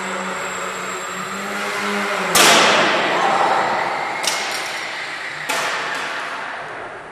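Small electric foam aerobatic RC plane's motor and propeller running with a steady hum. About two and a half seconds in comes a sudden loud crashing impact that rings on in the gym's echo. The motor sound stops with the impact, and two more sudden knocks follow.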